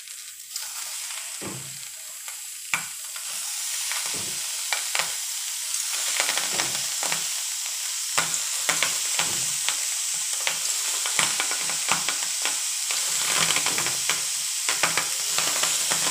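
Pieces of dried salted fish laid one by one into a hot pan, sizzling. The sizzle starts faint and builds, growing louder as more pieces go in, with many small sharp clicks through it.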